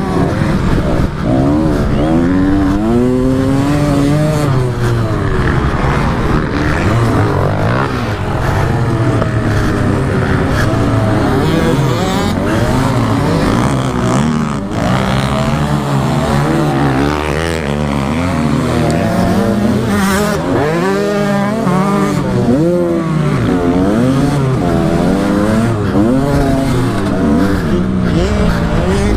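Kawasaki KDX 125 two-stroke dirt bike engine revving hard, its pitch rising and falling over and over as the rider accelerates out of corners and shifts gears.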